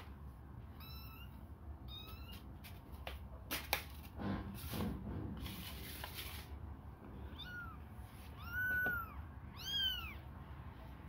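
Young kittens mewing, hungry: short high-pitched wavering mews about a second and two seconds in, then three louder rising-and-falling meows in the second half. A few clicks and a rustle come in the middle.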